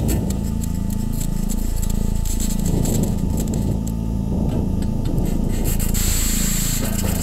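Electronic ambient drone soundtrack: low, banded tones that sweep down and back up in slow repeating arcs, like a phaser, over a grainy crackling hiss. The high hiss grows brighter about six seconds in.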